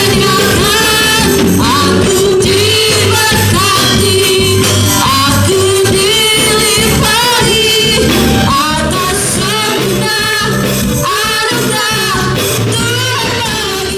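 Worship song: a woman sings the lead melody over steady band accompaniment.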